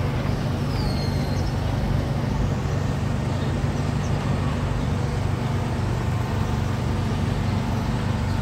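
A steady machine drone, a constant low hum under a rush of noise. A small bird gives one high, falling chirp about a second in.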